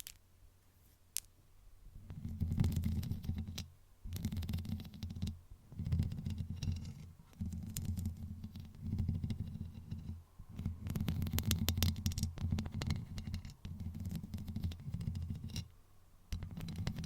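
Fingernails scratching and rubbing over a cardboard box close to the microphone, in repeated strokes of one to three seconds with short pauses between them. The strokes begin about two seconds in and carry a low rumble under a fine scratchy crackle.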